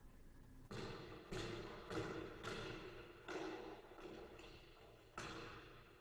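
Recorded basketball bounces played back as a sound sample: about seven uneven thuds, each with a short ring after it.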